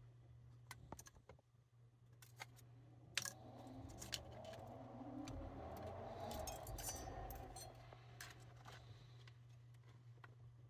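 Small metallic clicks and taps of tools being handled while desoldering wires from a radio circuit board, with a soft hiss swelling up for several seconds in the middle. A steady low hum sits underneath.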